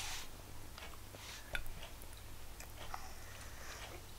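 A person eating: quiet chewing with faint scattered clicks, and one sharper click about one and a half seconds in.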